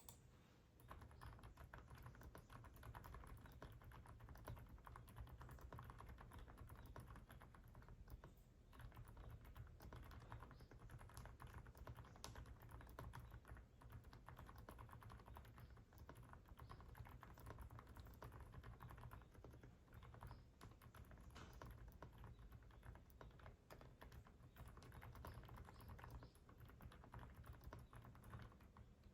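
Typing on an Aula F75 mechanical keyboard with Deep Sea Whale silent switches: a faint, steady run of soft keystrokes, with a brief pause about eight and a half seconds in.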